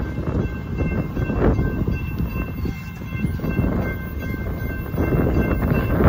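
Railroad crossing warning bell ringing steadily while the crossing gates lower, over a loud low rumble that swells about five seconds in.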